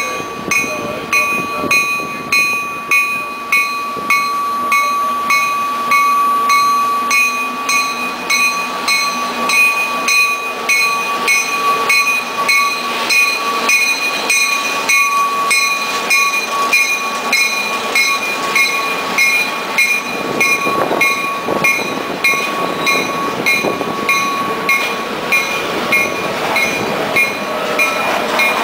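Freight train with a diesel locomotive passing close by and then a string of empty log cars rolling past, wheels clattering over the rail joints. A bell rings steadily, about two strikes a second, the whole time.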